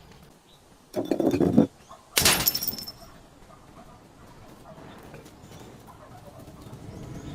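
Glass breaking: a short low crunch about a second in, then a sharp crash about two seconds in with ringing glass shards.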